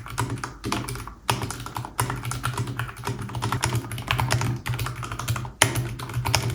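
Fast typing on a Vissles V84 mechanical keyboard with VS2 linear switches, a rapid run of key clacks with brief pauses about a second in and near the end. A steady low hum sits underneath.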